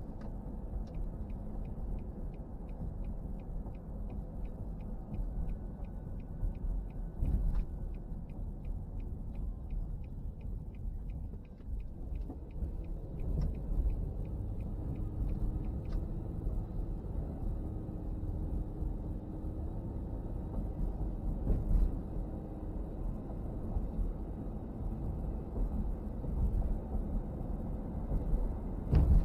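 Car interior with a steady road and engine rumble; a turn signal ticks at about three clicks a second for roughly fifteen seconds, then stops. A few thumps from bumps in the road.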